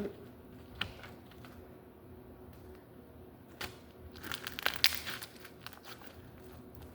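Fluffy Elmer's glue slime being handled and stretched by hand, giving a few sharp crackles and then a cluster of crinkly clicks and pops about four to five seconds in.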